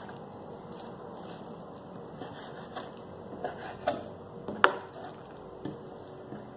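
Kitchen knife cutting raw pork steak into small pieces on a cutting board: scattered, irregular knocks of the blade against the board, the sharpest one a little past halfway.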